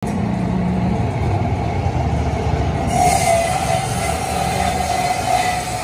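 Steady low mechanical rumble, with a higher drone and hiss joining about three seconds in.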